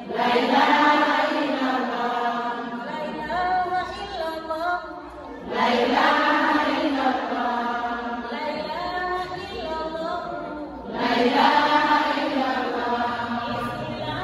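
A group of voices chanting in unison, in three long phrases about five and a half seconds apart, each starting loud and trailing off.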